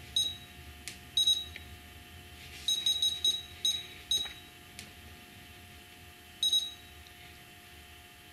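Futaba T8FG radio transmitter key beeps: short high-pitched beeps, scattered and at times several in quick succession, as its buttons are pressed to step back through the menus to the home screen, with a few faint button clicks between them.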